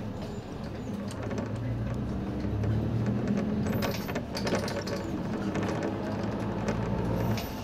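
Inside a Nissan Diesel Space Runner city bus on the move: the diesel engine drones steadily under tyre noise on a wet road, with a cluster of clicks and rattles about four seconds in.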